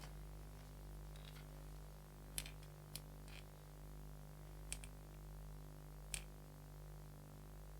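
A few faint, sharp light clicks and taps of soldering work, spaced irregularly, over a steady low electrical hum.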